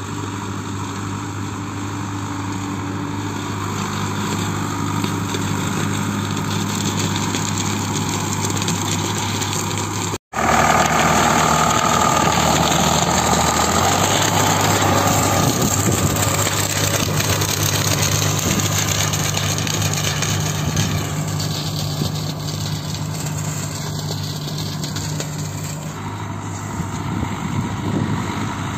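Tractor diesel engine running steadily under load while working a field with a straw-flinging implement. The sound drops out for an instant about ten seconds in, then comes back louder and closer, with extra rushing noise over the engine for a few seconds.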